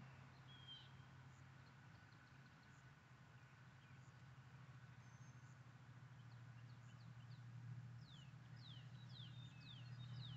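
Near silence with a faint steady low hum; a bird chirps once about a second in, then gives a quick run of falling chirps over the last few seconds.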